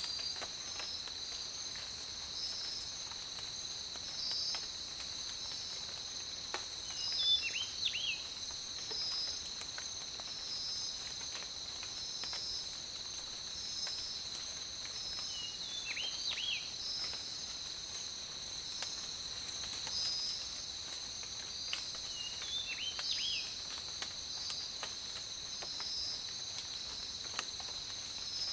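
Steady high-pitched insect chorus with a regular pulse about once a second. Short bird chirps break in over it in little clusters every seven or eight seconds.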